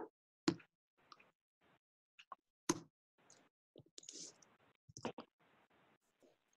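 Faint, irregular clicks and taps of a computer mouse and keyboard, about a dozen spread unevenly over several seconds.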